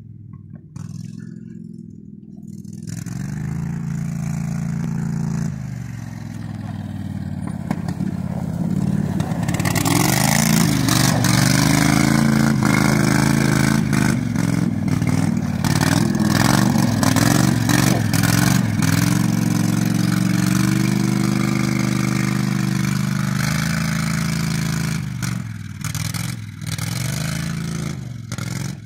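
Toro Twister utility vehicle's engine running and revving up and down as it slides around on snow. It starts faint and distant, is loudest about a third of the way in as it passes close, and fades again near the end.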